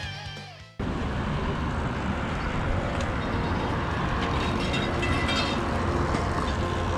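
Rock guitar music fading out, then cut off sharply about a second in. After the cut comes the steady rush of wind and road noise from a Sur-Ron electric bike being ridden.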